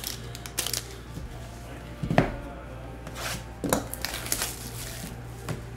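Trading-card packs and cards being handled on a table: a handful of short, scattered taps, rustles and knocks, the loudest about two seconds in, over a steady low hum.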